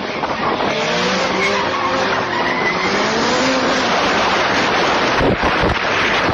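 Cars driven hard in traffic: an engine revving up and down, its pitch wavering from about a second in until about four seconds in, over a steady rush of wind and road noise. Low thumps of wind buffeting the microphone come near the end.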